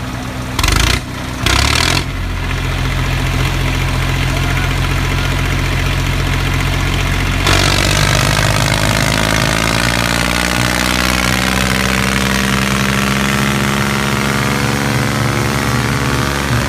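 A vehicle engine idling steadily, with two short louder bursts in the first two seconds. About halfway through, the sound shifts and the engine note slowly drops in pitch.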